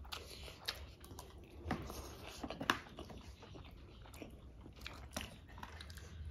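Close-miked chewing and mouth sounds of two people eating, with scattered sharp clicks, the loudest a little under three seconds in.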